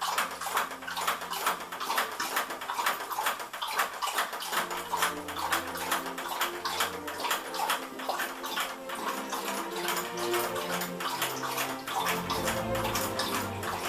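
A dog lapping water from a bowl in rapid, even laps, the tongue splashing and clicking several times a second. Low, sustained musical notes that change in steps run underneath.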